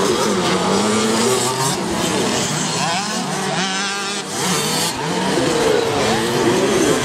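Several 65 cc two-stroke motocross bikes racing on a dirt track, their engines revving up and down over one another.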